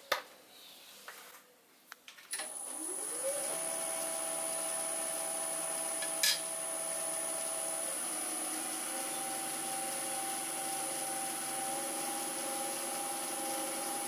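Axminster AT1628VS variable-speed wood lathe starting up about two seconds in, its motor whine rising in pitch, then running steadily with a high electronic whine. A bowl gouge rubs and cuts into the end grain of a spinning yew bowl blank, and the pitch steps up slightly just past halfway.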